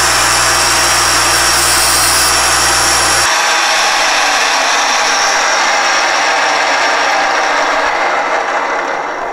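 Alexander Model 3A pantograph engraving and milling machine's spindle running steadily with its end mill cutting a metal watch-dial chapter ring. About three seconds in, the low hum drops out and the sound changes; near the end it fades away.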